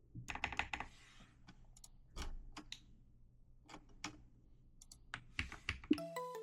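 Typing on a computer keyboard: a quick run of keystrokes at the start, then scattered single clicks and another short run. A melodic music track comes in right at the end.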